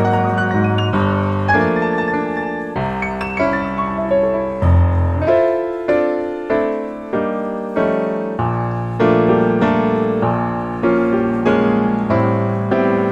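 Background piano music: a gentle melody of struck notes that each ring and fade, one after another.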